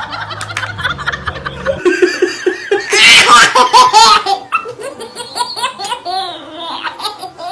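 People laughing hard, in bursts that peak about three to four seconds in.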